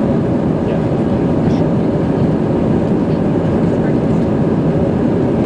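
Steady cabin roar of an Airbus A320 climbing after takeoff, heard from inside the cabin: engine and rushing-air noise at a constant level.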